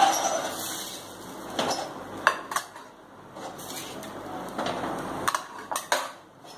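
A spatula scraping and clinking against an iron tawa in short strokes, working excess dosa batter off the pan. The sharp clinks are scattered through, loudest at the start and about two seconds in.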